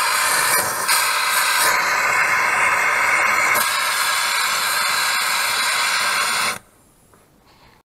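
Oxy-fuel torch flame hissing steadily as it heats a steel tube to a glow; the hiss cuts off suddenly about six and a half seconds in.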